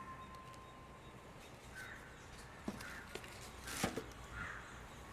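Quiet room with a few light clicks and a short knock a little under four seconds in, as something is dropped into a small waste bin. Faint short chirps recur now and then.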